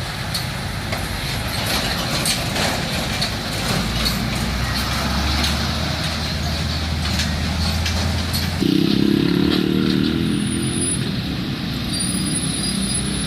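Heavy road traffic with diesel trucks running. About nine seconds in, a loud pitched blast sounds for about two seconds.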